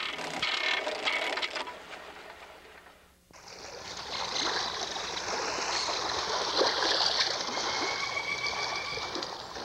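Water rushing and splashing along the hull of a moving boat, fading out about three seconds in. A steady hiss then starts abruptly and carries on.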